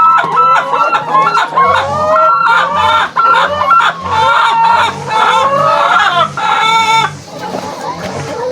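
A flock of laying hens clucking and calling, many voices overlapping, thinning out about seven seconds in.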